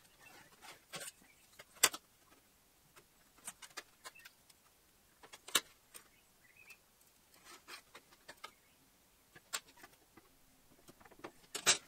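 Sparse light clicks and taps of a steel rule on an aluminium sheet and an alloy radiator core as a box is marked out and measured, with faint pencil scratching between the taps.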